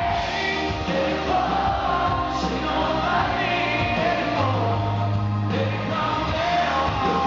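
Live country band performance: a male lead vocal singing at full voice over strummed acoustic guitar, drums and a steady low bass line.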